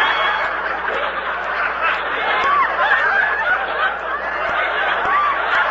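Studio audience laughing at a radio comedy gag: a long, dense crowd laugh made of many voices at once, heard through the narrow sound of an old radio broadcast recording.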